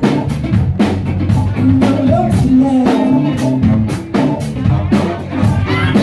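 Live cover band playing a dance song loudly: a steady drum-kit beat with bass and electric guitar, and a voice singing over it.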